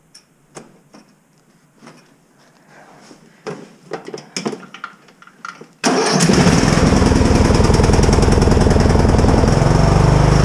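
A few scattered clicks and knocks, then about six seconds in a lawn mower's small engine starts suddenly and runs steadily and loud with the choke off.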